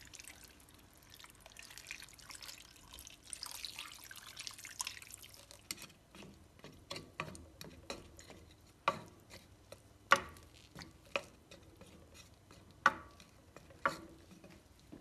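Water poured from a measuring cup into a stainless steel pan of beef and white radish chunks, a soft splashing hiss in the first few seconds. Then a wooden spatula stirring the pieces, with several sharp knocks against the pan in the second half.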